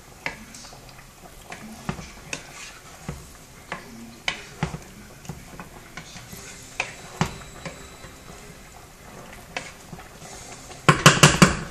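Wooden spoon stirring chicken in a thick tomatillo sauce in a pot, with scattered light knocks of the spoon against the pot. Near the end comes a quick run of louder clatters.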